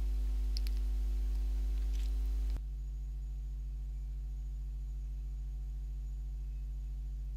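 Steady electrical mains hum with a row of evenly spaced overtones, and no other sound; about two and a half seconds in it drops a little in level.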